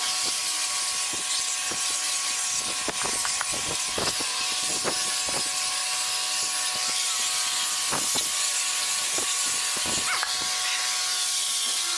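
Electric angle grinder fitted with a sanding disc, running steadily at high speed while sanding the planks of a wooden pallet: a constant motor whine with a hiss of abrasive on wood, and frequent short scrapes as the pad is pressed onto and moved across the boards.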